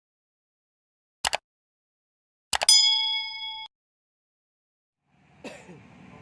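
Short double clicks, then another click followed by a bell-like ding that rings for about a second and cuts off abruptly, against dead silence. Near the end a low humming background noise fades in.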